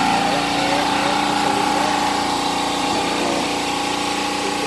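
A small engine running steadily at one constant pitch, a continuous hum.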